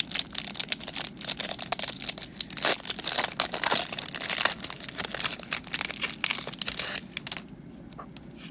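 Foil Pokémon TCG booster pack wrapper crinkling as it is handled and opened, a dense crackle that stops about seven seconds in, followed by a few light clicks.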